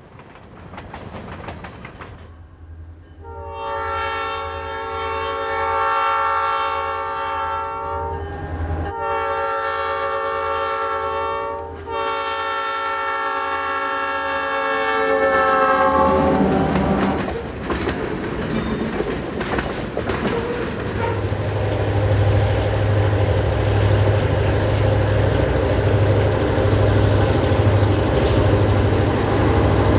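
Diesel locomotive air horn sounding three blasts, long, short, then long, from an ex-Illinois Central GP-10 leading a lumber train. After that, a diesel locomotive's engine rumbles with a steady throb as it approaches slowly.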